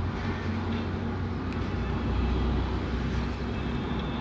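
Road vehicle driving at a steady pace: a steady low engine drone with even road noise.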